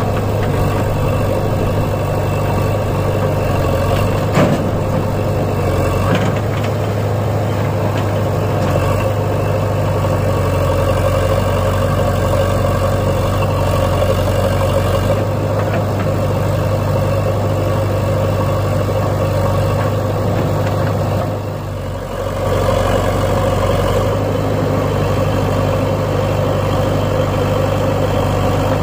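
Diesel tractor engine running steadily, with a brief drop in level about three-quarters of the way through.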